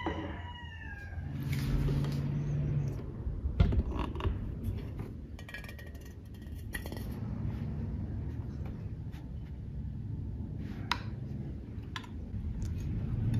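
Scattered light clicks and knocks of a cake server and plate, over a low steady rumble of background noise.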